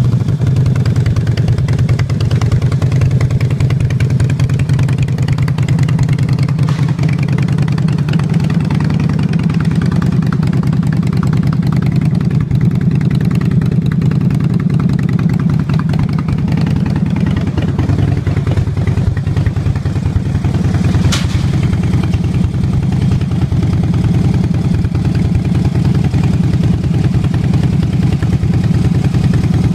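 2012 Harley-Davidson Dyna Fat Bob's V-twin idling steadily through Akrapovic mufflers, a low, even engine note. A single sharp click about two-thirds of the way through.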